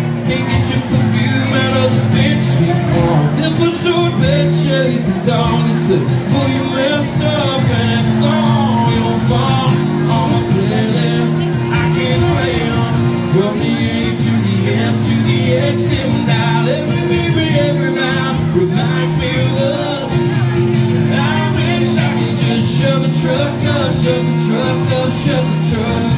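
Live acoustic country song: a man singing over two acoustic guitars being strummed and picked.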